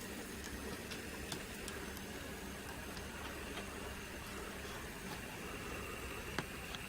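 Model diesel switching locomotive running slowly, a faint steady motor hum with scattered light clicks from wheels and couplers, and one sharper click near the end.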